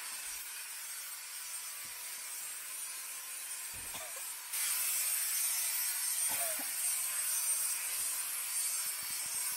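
Steady hiss of workshop background noise that steps up louder about halfway through, with a few faint knocks.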